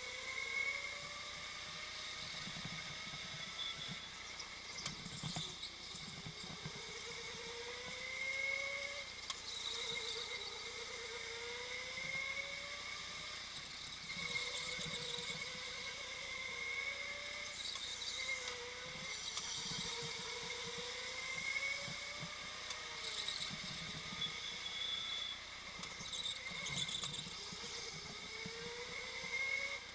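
Go-kart running hard around a track, heard from the driver's helmet. Its motor whine climbs in pitch as it speeds up on each straight and falls back for the corners, again and again.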